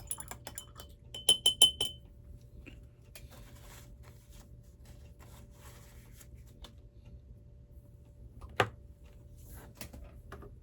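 Small glass paint bottle and dropper clinking as paint is dispensed into an airbrush cup: a quick run of four ringing clinks, then light handling ticks and one sharp knock near the end.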